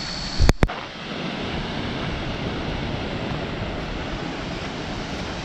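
Steady, even rushing of a waterfall. Two sharp clicks come about half a second in.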